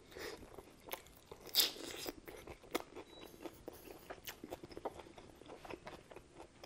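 Close-miked mouth sounds of a bite of pizza being chewed: crisp crust crunching and wet mouth clicks throughout, with the loudest crunch about one and a half seconds in.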